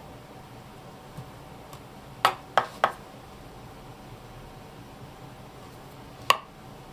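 Kitchen knife slicing squid on a wooden cutting board, the blade knocking against the board: three quick knocks a little over two seconds in, then one more single knock near the end.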